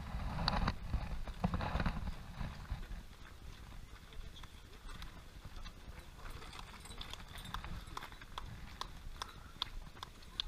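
Running shoes tapping on a tarmac road as a group of marathon runners jogs past: many overlapping, irregular footfalls, with the sharpest taps in the second half. There is a louder low rumble in the first couple of seconds.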